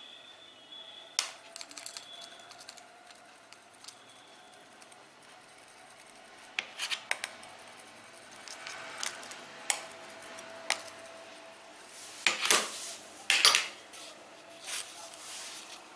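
Metal tool, a penknife blade, clicking and scraping against a smartphone's Gorilla Glass 3 screen in scattered short strokes, with the two loudest scrapes, each about half a second long, near the end.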